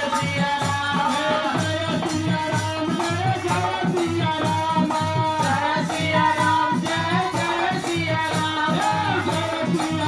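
Live Hindu devotional kirtan: a man singing over harmonium, with a drum beating a steady, even rhythm and kartal clappers jingling throughout.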